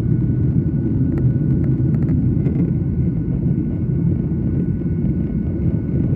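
Steady low rumble of a Boeing 737's jet engines and airflow, heard inside the passenger cabin during the climb after take-off.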